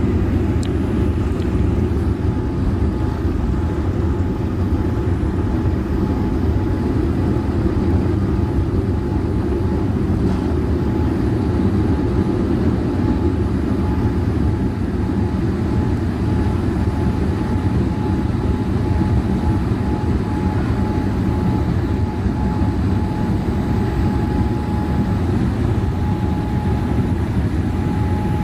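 Jet airliner's engines at takeoff thrust heard from inside the cabin: a loud, steady rumble with a constant whine above it through the takeoff roll and climb-out.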